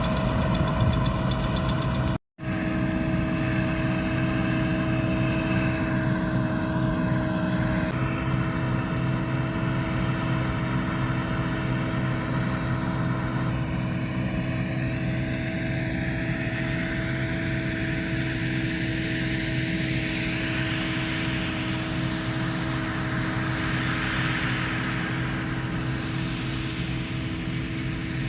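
Combine harvester running steadily, its engine holding an even pitch. The sound cuts out for a moment about two seconds in. A rushing noise swells and then fades in the last third.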